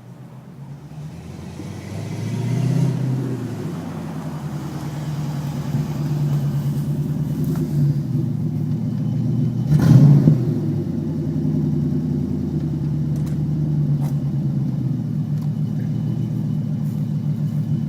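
1987 Ford Mustang GT's 5.0-litre V8, still cold, being revved: the engine climbs about two seconds in, gives its loudest, sharpest rev about ten seconds in, then runs on steadily.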